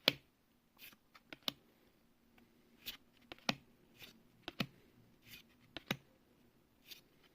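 Magic: The Gathering cards being handled and flipped through one by one, with irregular sharp clicks and soft swishes of card stock sliding against card stock.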